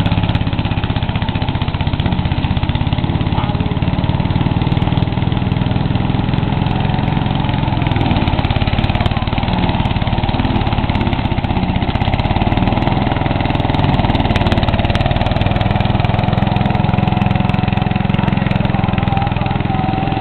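8 HP Briggs & Stratton single-cylinder engine on a ride-on mower, running loud and steady with no exhaust fitted, open-piped as the mower drives along.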